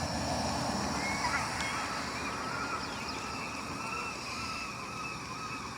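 Seagulls calling, many short repeated arching cries, over a steady low background rumble.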